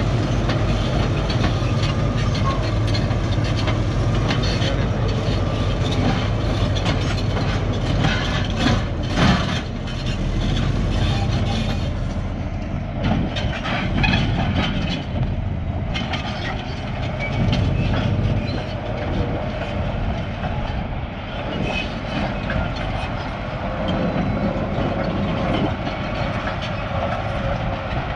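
Caterpillar D9H bulldozer's diesel engine running hard, with its steel tracks clanking and knocking over broken rock.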